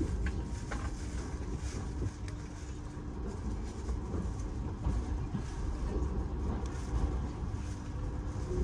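Passenger train rolling slowly out of a station, heard from inside the carriage: a steady low rumble of wheels on track with scattered clicks and knocks.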